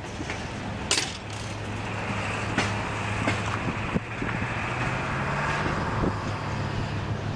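ALCO RS-11 diesel locomotive's V12 engine running with a steady low drone that steps up in pitch about five seconds in, along with a hiss that swells in the middle and a few sharp clicks.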